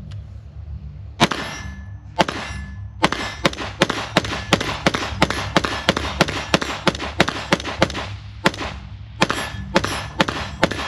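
Springfield Armory Hellion 5.56 rifle firing semi-automatic, about 28 shots: two single shots a second apart, then a steady string of about three to four shots a second, a short pause, and a final quick string of six. Each shot leaves a brief metallic ring, likely from the steel targets being hit.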